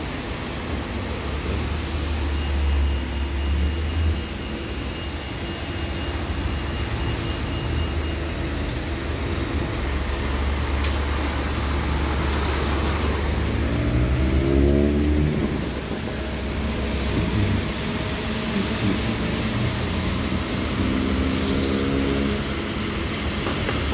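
Red double-decker buses in street traffic: a steady low engine rumble, with one bus accelerating away about fourteen seconds in and another rising engine note near the end, over tyre noise on the wet road.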